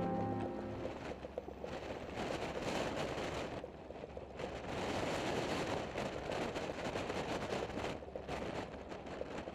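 North American T-6 Texan's radial engine and rushing air heard from the aircraft: a steady, rough rumble with a rush of wind. The tail of a song fades out within the first second.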